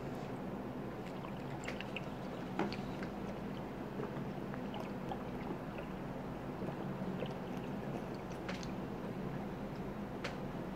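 Quiet swallowing and ale gurgling in a 40-ounce glass bottle during one long drink, with a few small ticks over a low steady hum.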